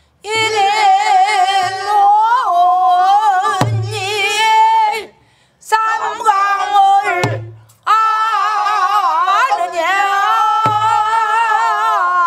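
Pansori singing: long, drawn-out sung phrases with a wide, wavering vibrato, broken by two short breaths. A few low strokes on buk barrel drums fall between the phrases.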